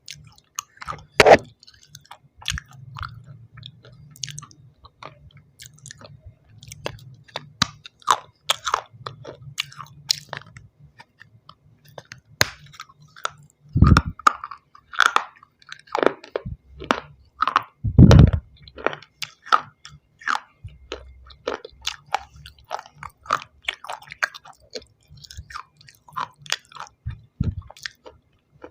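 Pieces of shale stone being bitten and chewed: a steady run of crisp crunches and snaps, with a few louder bites about a second in, near the middle and a few seconds after that.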